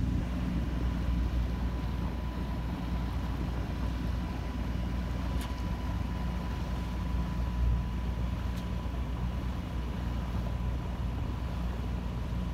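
Sailboat's auxiliary engine running steadily under way, a low even drone with a faint steady whine above it.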